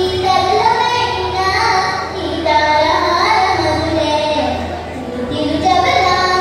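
A girl singing solo into a microphone, her voice amplified through the hall's speakers: melodic phrases with held notes and a short breath about five seconds in.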